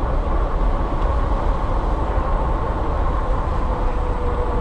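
Wind buffeting the microphone on a fat-tire electric bike ridden at about 28 mph: a steady low rumble, with a faint steady tone coming in near the end.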